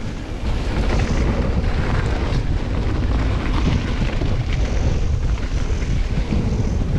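Downhill ride on a Commencal Meta AM mountain bike: wind buffeting the microphone over the rumble of tyres on a dirt trail, with scattered small clattering knocks from bumps.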